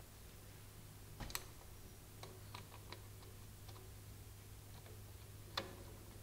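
Small clicks and taps of a screwdriver and screws against the metal switch cover plate of a drill press as the plate is fastened on. A sharper click comes about a second in and another near the end, with lighter ticks between, over a steady low hum.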